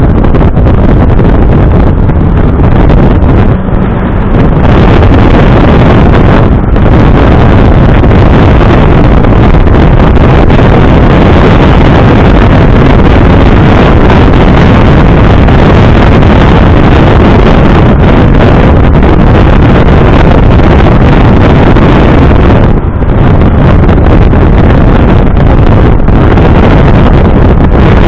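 Smart Roadster's turbocharged three-cylinder engine, remapped to 115 bhp, running on the move under heavy wind buffeting on the microphone. The sound is loud and dense, and it dips briefly three times.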